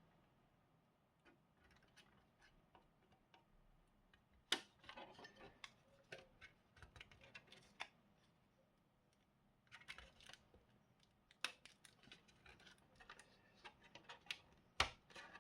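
Faint, scattered small clicks and light scrapes of tweezers and small parts being handled during a TV repair, coming in short clusters with quiet gaps between them.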